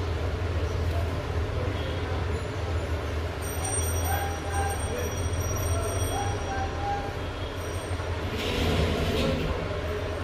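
Steady low background hum and rumble, with faint thin tones over it in the middle and a short hissing rush about eight and a half seconds in.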